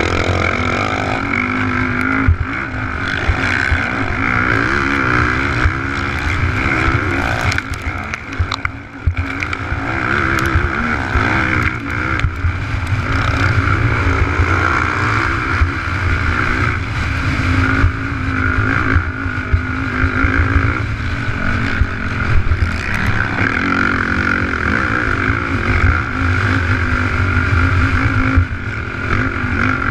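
Race quad's engine running hard at high revs, its pitch rising and falling with the throttle, with a brief let-off around eight seconds in. It is heard up close from a camera mounted on the ATV.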